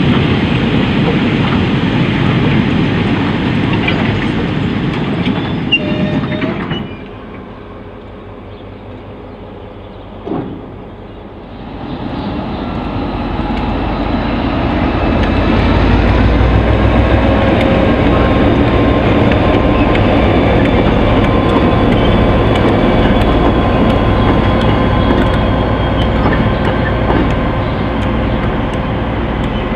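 Loaded four-wheel log wagons rolling past with wheels clattering on the rails, fading out about seven seconds in. After a quieter spell with one short knock, a KiwiRail DC-class diesel-electric locomotive (EMD G22AR) comes in running light, its diesel engine giving a steady low rumble.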